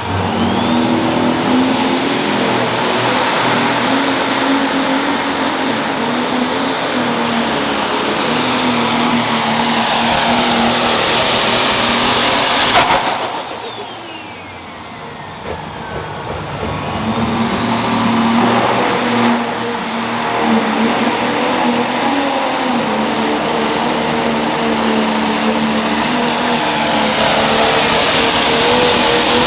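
Turbocharged diesel engines of Pro Stock pulling tractors at full power under load, with a high turbo whistle that climbs steeply and then holds. About 13 seconds in the sound cuts off sharply and winds down. A second tractor spools up about 17 seconds in, its whistle climbing again and holding to the end.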